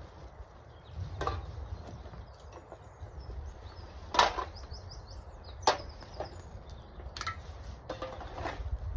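Litter, mostly drink cans, being picked up and dropped into a bag: a handful of separate sharp clacks and clinks, the loudest about four seconds in, over a low rumble.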